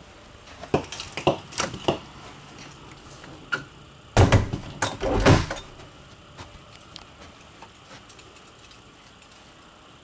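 An interior door being handled and opened: a quick run of latch clicks and light knocks, then louder rattling knocks for about a second near the middle.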